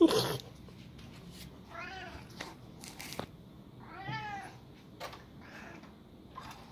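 Domestic cat meowing: three short meows about two seconds apart, the middle one loudest and the last faint. A brief, sharp noise at the very start is the loudest sound.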